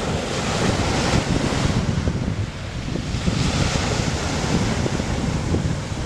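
Small waves breaking and washing up a gravel beach, with two surges of hiss, under steady wind buffeting the microphone.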